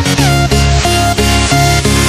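Background electronic dance music with a steady beat and a heavy bass line.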